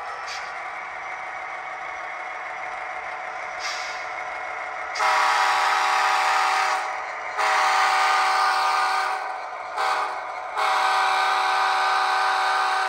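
Soundtraxx Tsunami2 sound decoder in an HO-scale SD70ACe, playing a diesel prime mover through a small round speaker. About five seconds in, it blows the horn loudly in a long, long, short, long pattern: the grade-crossing signal.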